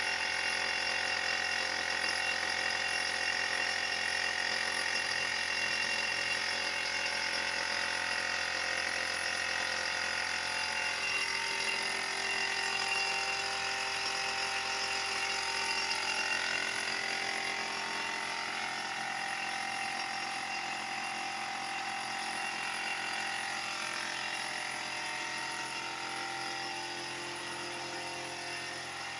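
Compressed-air spray gun and its air compressor running steadily: a continuous mechanical whine with hiss as a lacquer finish is sprayed onto wood, easing slightly in level in the second half.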